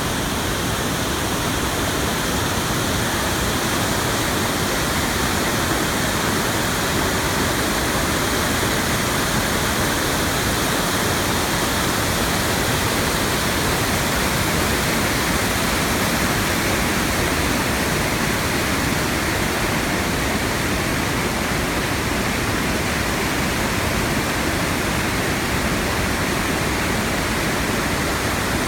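Ryuzu Falls, a cascade waterfall sliding down a rock slope, rushing in a loud, steady roar of falling water.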